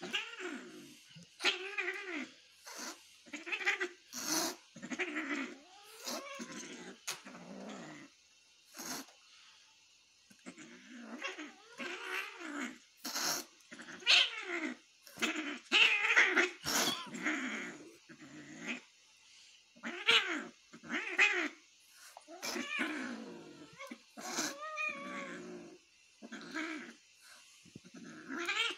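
Domestic tabby cat growling and yowling in a long run of short, drawn-out calls, about one a second, with a quiet spell about a third of the way in.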